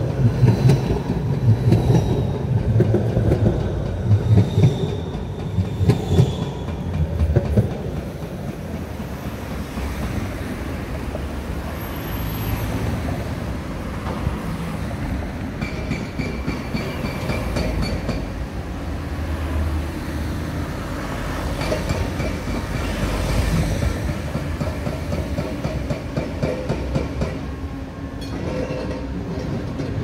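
Street traffic dominated by a tram going by: a clattering low rumble over the first several seconds with a thin high wheel squeal sliding down in pitch, then a steadier traffic rumble of passing cars with brief high whines later on.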